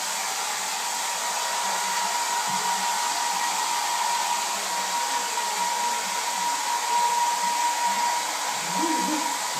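Hair dryer running steadily while drying a wet puppy: an even rush of air with a steady high motor whine.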